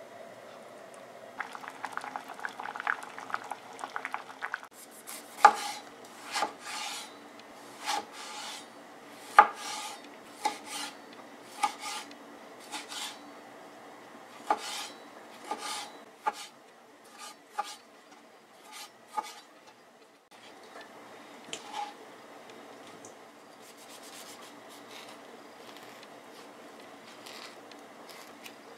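A metal turner scraping and clicking against a stainless steel pot for a few seconds, then a kitchen knife cutting through tomato and knocking on a plastic cutting board about once a second.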